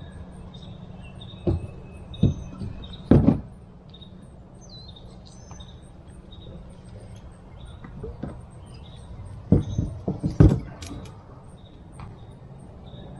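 A few sharp knocks and clunks from gear being handled, in two clusters: one in the first few seconds, one about ten seconds in. A steady low hum runs underneath, with faint bird chirps.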